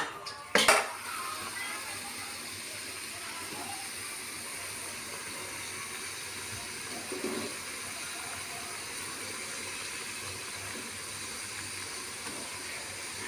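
Two sharp metal clanks about half a second apart as the aluminium steamer pot's lid is handled, then a steady hiss of the steamer heating on the gas stove.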